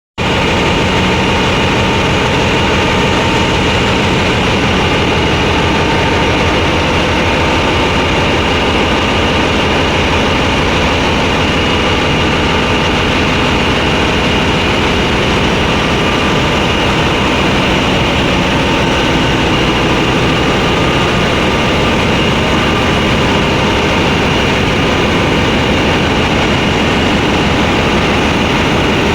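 Steady, loud machinery noise with a constant high whine, from on-site grinding of a crankpin on a Hyundai Himsen 20H32/40 diesel engine's crankshaft.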